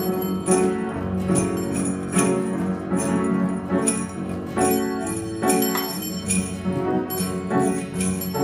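Instrumental music with bells struck in an even beat, a little more than once a second, over held tones.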